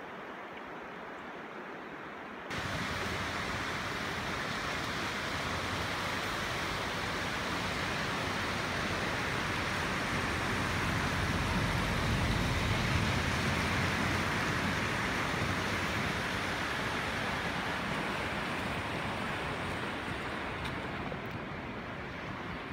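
Flooded river water running quietly for the first couple of seconds, then the louder steady rushing of the Glomma's ice drift, masses of broken ice floes pushing downstream. The rushing swells toward the middle and eases off near the end.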